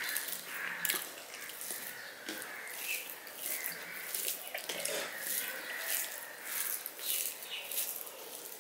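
Wet, clicky eating sounds: fingers squishing and mixing rice with vegetable curry on a steel plate, and chewing, with many short wet clicks one after another.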